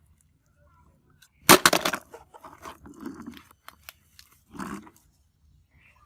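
Hard plastic toy clattering as it is handled. A loud, sharp clatter comes about a second and a half in, followed by lighter knocks and rattling, and a shorter clatter near the end.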